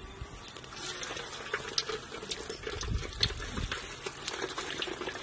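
Hot oil in a wide metal pan sizzling, with many sharp crackles and pops, as food is dropped into it by hand to deep-fry. The crackling picks up about a second in.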